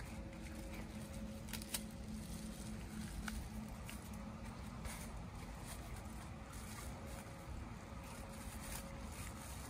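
Crinkling and rustling of a protective fruit bag being peeled off a guava by hand, with scattered small clicks, one sharper about two seconds in, over a low steady rumble and a faint hum.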